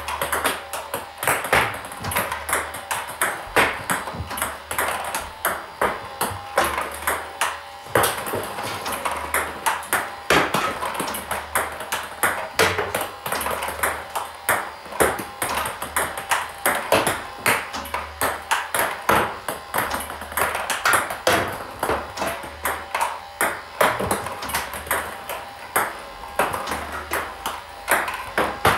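Table tennis rally of backhand loops: a celluloid-type plastic ball clicking off the bat and bouncing on the table in a fast, even rhythm, several sharp clicks a second.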